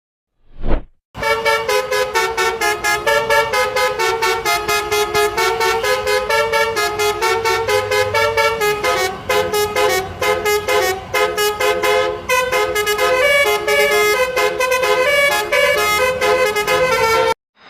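Indonesian 'telolet' bus horn: a multi-tone horn playing a fast tune of short notes that cuts off suddenly near the end. A brief low thump sounds just before the tune starts.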